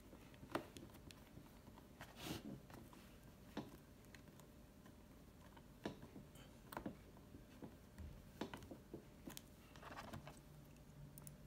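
Faint, scattered small clicks and taps of a screwdriver and small parts being handled on a laptop's plastic bottom case, about one every second.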